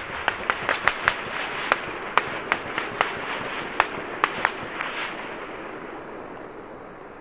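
Distant gunfire echoing across the city: a rapid, irregular string of sharp shots, each trailing an echo, thinning out after about five seconds and leaving a fading rumble of reverberation.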